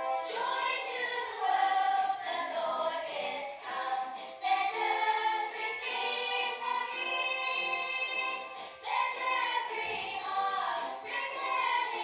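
A song: several voices singing together over instrumental backing.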